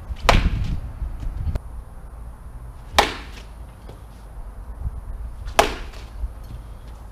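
Rawlings VELO R271V baseball bat hitting baseballs off a tee: three sharp contact cracks, roughly two and a half seconds apart, with fainter knocks between them.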